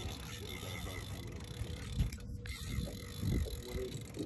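Fishing reel being wound in under the load of a hooked tarpon, a mechanical clicking whir, with a few irregular dull thumps of rod and boat handling.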